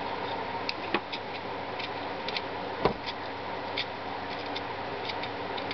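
Small scissors snipping the leathery shells of ball python eggs: a scattering of light clicks, the sharpest a little under three seconds in, over a steady fan-like hum.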